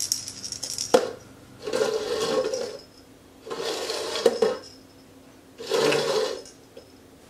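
A cat's rattle toy jingling as it is hidden under a cup, a plastic cup set down on a tile floor with a sharp knock about a second in, then three bouts of plastic cups being slid and shuffled across the tile.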